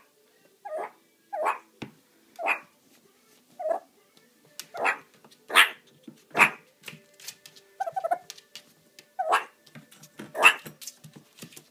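Meerkat giving its warning call from inside a pet carrier: a series of about ten short, sharp barks, roughly one a second, with quiet gaps between them.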